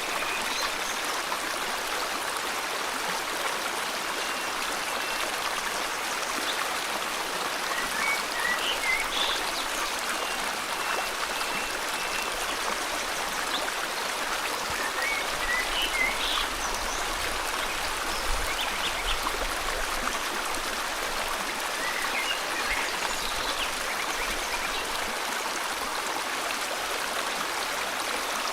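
River water flowing steadily, with small birds giving short chirps a few times and a thin high whistle held for a few seconds over it.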